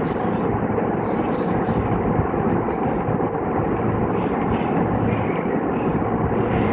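Steady background noise with a low hum, even throughout, with no distinct knocks or clicks.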